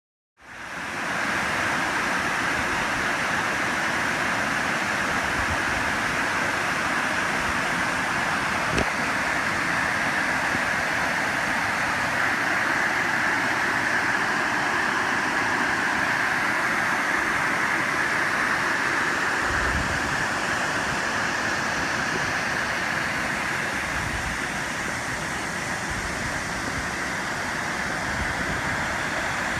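Waterfall rushing in a steady, unbroken wash of falling water that cuts in suddenly at the start. A single faint click about nine seconds in.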